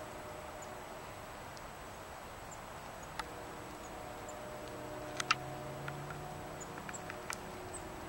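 Quiet outdoor ambience with a steady faint hum, broken by scattered light clicks and ticks; the sharpest is a double click about five seconds in, with a few more smaller ticks after it. A low drone swells in the middle and fades again.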